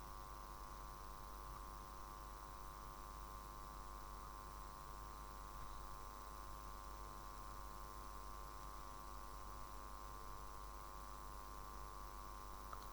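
Steady low electrical hum with faint hiss: unchanging room tone.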